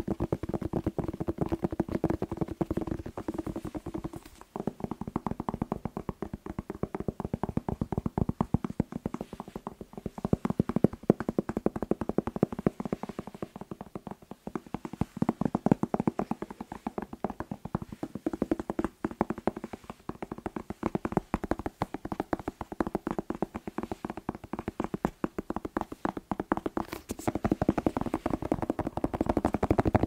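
Rapid fingertip tapping on a hollow red bell pepper, close-miked: a dense, quick run of taps with a hollow knock, broken by a couple of brief pauses.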